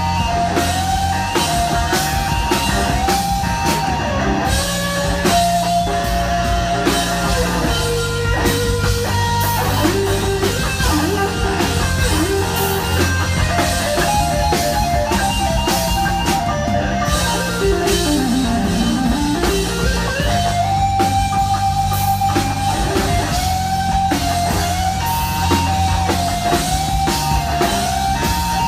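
Live rock band playing: an electric guitar carries a melodic lead line of held and bent notes over low bass notes and a drum kit.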